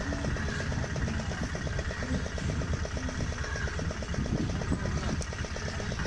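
Fishing boat's engine idling steadily, with an even, fast beat.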